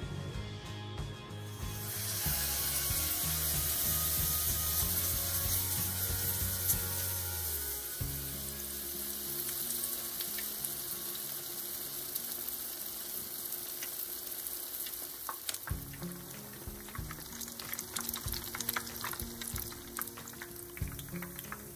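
Batter-coated pumpkin flowers deep-frying in a skillet of hot oil. The oil sizzles steadily from about two seconds in, and the crackle grows busier with more pops near the end.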